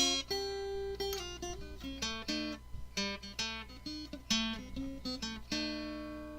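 Acoustic guitar music: a run of plucked notes and chords, ending on a chord about five and a half seconds in that rings out and fades.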